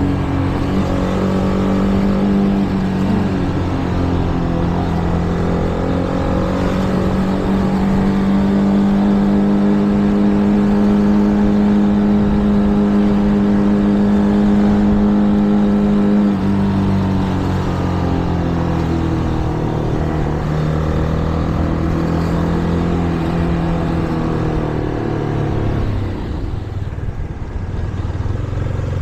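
Shineray Flash 250F motorcycle engine running under way, its pitch held steady for a while, then falling about halfway through as the revs drop, and rising again as it picks up speed.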